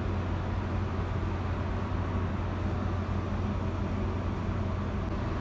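Steady low mechanical hum with an even hiss from a cruise ship's machinery and ventilation, unchanging throughout.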